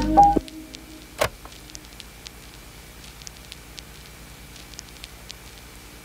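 A lo-fi piano track ends in its first half-second, leaving a faint vinyl-style crackle with scattered clicks and one louder click about a second in.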